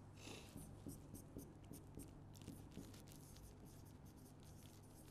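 Faint scratching of a pen writing on a board: a run of short, quick strokes, busiest from about two seconds in, over a low steady hum.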